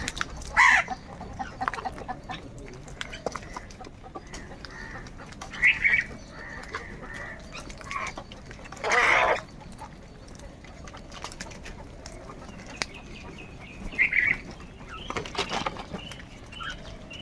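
Crows cawing: several separate harsh calls spaced a few seconds apart, the loudest and longest about nine seconds in.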